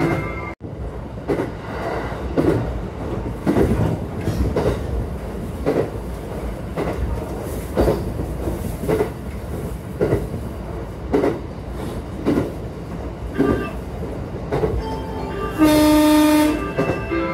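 JR West 227 series electric train running, its wheels clacking over rail joints about once a second over a steady low rumble. The train horn sounds twice: once at the very start, cut off abruptly within the first second, and again for about a second and a half near the end. The horn is sounded at a whistle sign.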